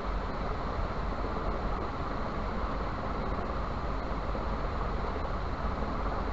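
Steady rushing background noise with a low rumble underneath, unchanging throughout.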